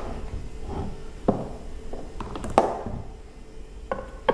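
Handling knocks as a handheld electric car polisher, switched off, is picked up and set down on a plastic digital kitchen scale: a few sharp taps and clunks about a second apart, the loudest in the middle.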